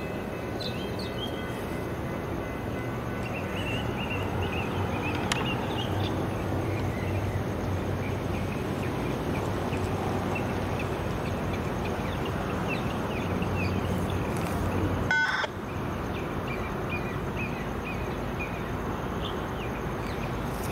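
Outdoor ambience: a steady background hiss and low hum with small birds chirping now and then. A brief click and a short drop in level come about fifteen seconds in.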